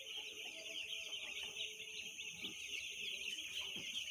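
A brood of two-day-old broiler chicks peeping continuously, a dense chorus of many overlapping high chirps.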